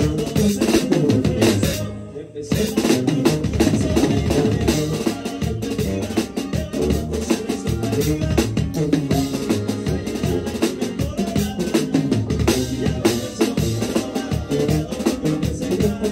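Drum kit played up close in a live norteño band, with bass drum, snare and cymbal hits loud over the rest of the band. The band stops for a short break about two seconds in, then comes back in.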